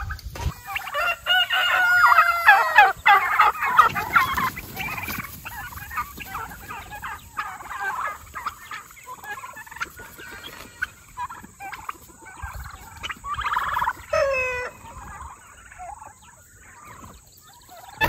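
A flock of free-ranging turkeys and chickens calling: a long rooster crow is the loudest sound, about a second in, followed by scattered clucks and turkey gobbles and a short call near the end.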